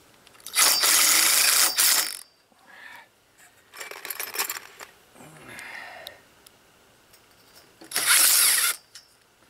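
Cordless drill driving short screws into a clamp on a galvanized steel pipe frame, in two runs: one of about a second and a half near the start and a shorter one about eight seconds in.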